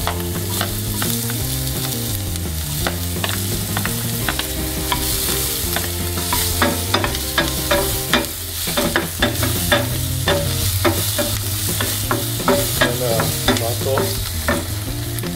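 Onion and green capsicum sizzling in hot oil in a non-stick frying pan while a wooden spatula stirs and scrapes them. The spatula's clicks against the pan come thick and fast from about six seconds in.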